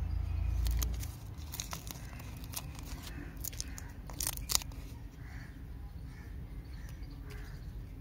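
Paper wrapper of a toffee lollipop being torn and peeled open by hand, a run of crinkling crackles with the loudest about four and a half seconds in. A low rumble comes in the first second.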